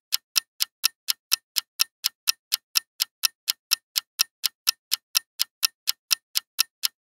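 Countdown-timer sound effect: a steady clock ticking, about four ticks a second, while the quiz answer time runs out.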